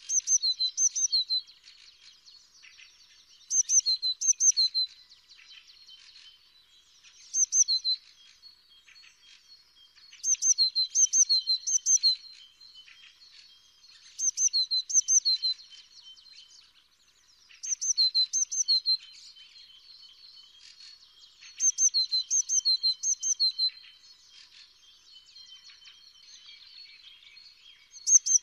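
Eurasian blue tit singing: short phrases of quick, high repeated notes, one every three to four seconds, with fainter chirps between phrases.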